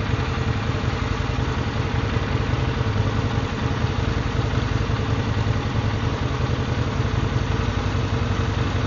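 Kawasaki VN 1500 Drifter's V-twin engine idling steadily with an even low pulse.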